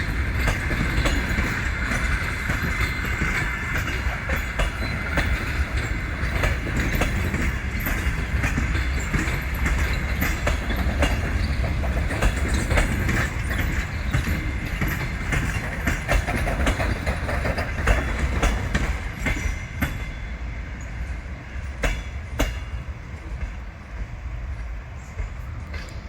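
Passenger coaches of a departing train rolling slowly by, wheels knocking over rail joints with a steady low rumble. A thin high wheel squeal sounds over the first few seconds, and the sound eases off near the end.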